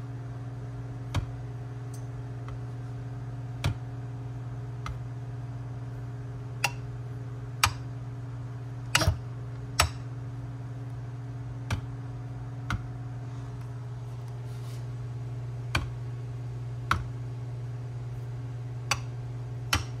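Irregular clicks and clunks from bare manual-transmission shifter assemblies, a Maddog short-throw and a stock Dodge Neon SRT-4 shifter, as their levers are pushed through their throws by hand. A steady low hum runs underneath.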